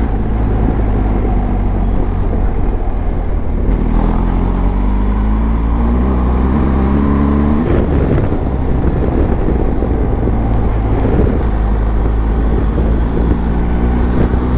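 BMW GS adventure motorcycle's engine running under way with wind rush. The engine climbs in pitch as it accelerates from about four seconds in, then drops at a gear change near the eight-second mark.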